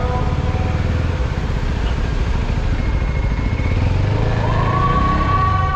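CFMoto 250NK motorcycle under way: its single-cylinder engine running steadily with rough wind and road noise. A steady high tone comes in about four and a half seconds in.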